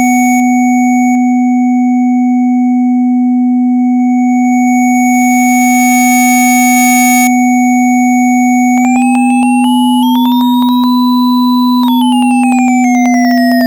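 Computer-synthesized tone generated from a Weierstrass function, a stack of steady pure tones over a loud low drone. Its middle tone holds, glides upward about nine seconds in and holds there, then slides back down near the end, while the high tones shift in small steps.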